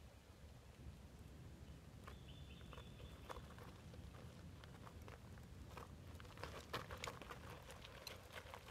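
Faint crunching and clicking of a LEGO Technic model's rubber tyres rolling over loose gravel and dirt, the clicks growing more frequent in the second half, over a low wind rumble.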